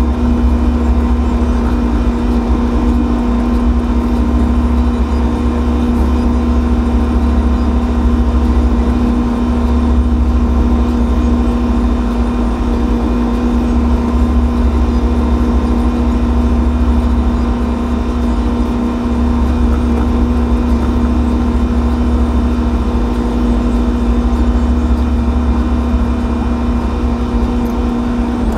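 John Deere 6115M loader tractor running steadily down the road, heard from inside the cab: a loud, even engine drone with a constant hum over a deep rumble.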